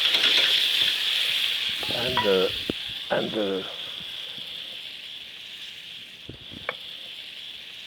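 Hot pan sizzling as tomato juice hits the browned garlic, loudest at first and easing off over several seconds.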